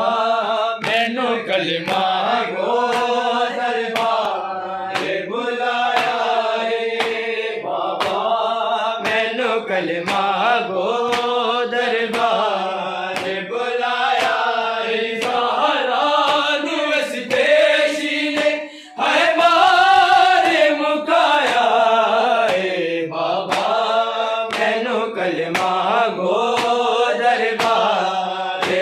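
Group of men chanting a Punjabi devotional recitation in unison, with regular hand strikes keeping time about once a second. There is a brief pause just before the louder chanting about two-thirds of the way through.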